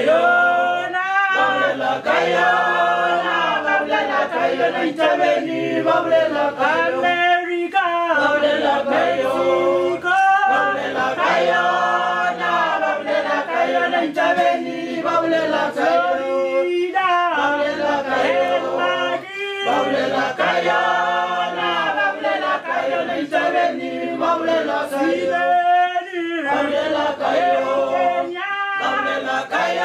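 A group of men and women singing a cappella together in harmony, in repeated sung phrases.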